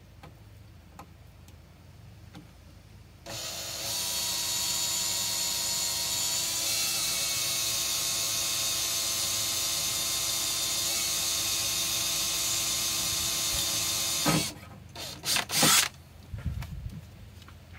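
Cordless drill boring a hole through a vehicle's sheet-metal floor pan. It starts about three seconds in and runs as a steady whine for about eleven seconds, then gives a few short bursts before stopping.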